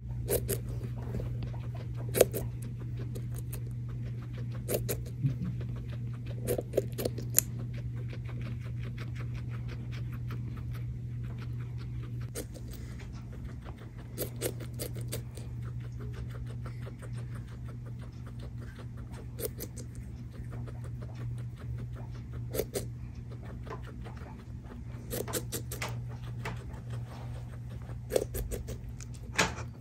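Guinea pig eating watermelon: rapid, crisp chewing clicks throughout, with louder single crunches every few seconds.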